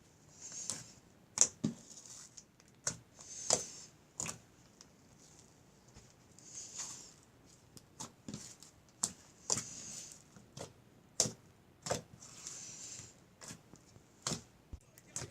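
Slime being squished and pressed by hand, giving irregular sharp pops and clicks with short wet, hissy squelches between them.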